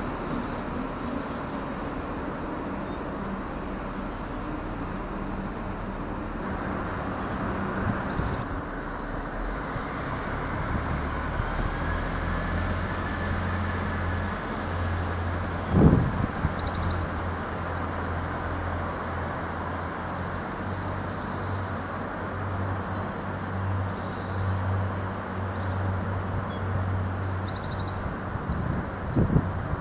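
A 29000 class diesel multiple unit's underfloor diesel engines running as the train pulls away, their steady drone growing stronger about a third of the way in. Small birds chirp over it throughout, and there is a single thump about halfway through.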